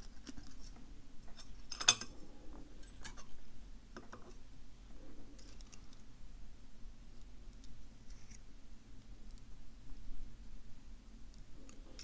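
Faint, scattered metallic clicks and scratches from steel tweezers picking driver pins and springs out of the pin chambers of a Mauer NW5 euro profile lock cylinder, with one sharper click about two seconds in.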